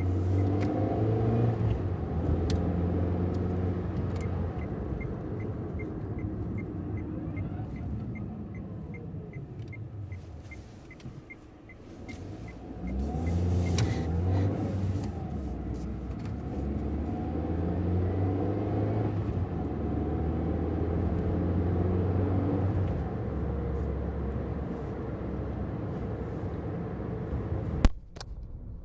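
Car engine running, its speed falling and rising again as it is revved, with a light regular ticking about twice a second through the middle. A sharp click comes near the end, after which the engine sound drops.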